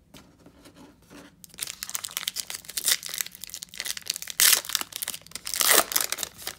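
A trading card pack wrapper being torn open and crinkled by hand: a dense run of crackling and tearing that starts about a second and a half in, with its loudest crinkles about four and a half and six seconds in.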